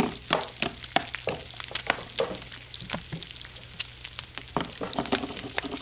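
A frying sizzle with many light clicks and scrapes as play green beans are sautéed with a plastic spatula in a toy frying pan.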